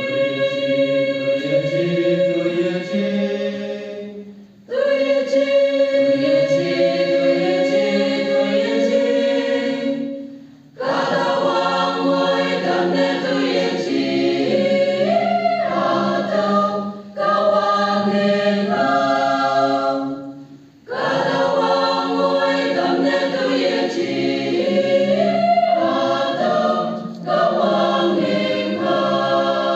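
Mixed choir of women's and men's voices singing a song in parts, in sustained phrases broken by short pauses roughly every five or six seconds.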